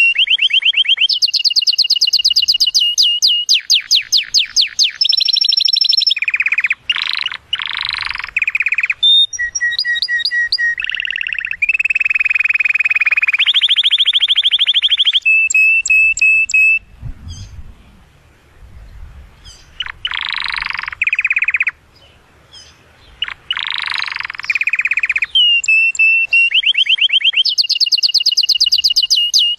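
Male domestic canary singing an excited courtship song to stir a female to mate: loud phrases of rapid trills and held whistled notes, broken by two short pauses a little past the middle.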